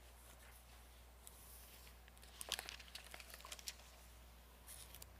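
Faint rustle of paper Bible pages being handled at a lectern, a few soft crinkles and clicks about two and a half to three and a half seconds in, over a faint steady low hum.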